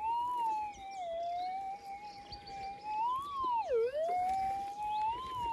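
Gold-prospecting metal detector's continuous threshold tone wavering in pitch as the coil sweeps. It swells up and back three times, with a sharp rise then a deep dip just past the middle: a target response from metal still in the ground, which sounds decent.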